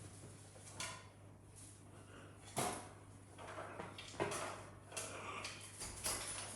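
A few sharp knocks about a second, two and a half seconds and four seconds in, with rustling between them, over a low steady hum.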